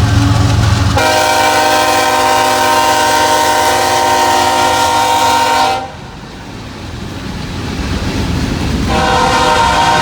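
CSX diesel locomotive's air horn sounding a chord: one long blast of about five seconds starting a second in, cut off sharply, then a second blast starting near the end. Between the blasts the low rumble of the passing train carries on.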